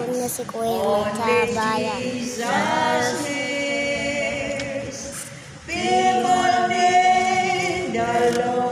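Two women singing a hymn together, with long held notes and a short break for breath about five and a half seconds in.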